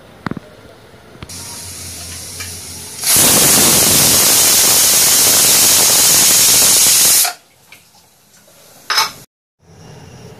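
Aluminium pressure cooker whistling: steam blows out under the weight valve as a hiss that starts about a second in, turns loud for some four seconds, then cuts off suddenly. The pressure inside has built up enough to lift the weight.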